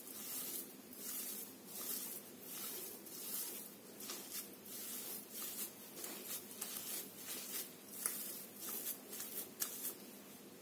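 A hand mashing and kneading freshly drained paneer curds in a cotton cloth: soft rustling squishes of cloth and curd, about one a second at first, then quicker and more uneven. The curds are being worked smooth so the paneer sets without a grainy texture.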